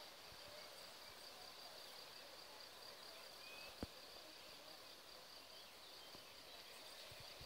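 Near silence: faint outdoor background hiss with a thin, steady high whine, and a single short click a little under four seconds in.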